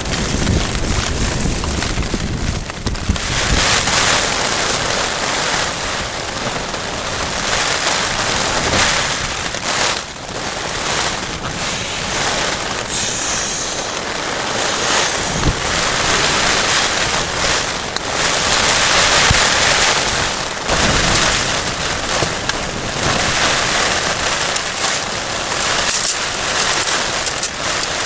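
Storm noise: heavy rain and strong gusting wind that swell and ease, with wind buffeting the microphone in low thumps.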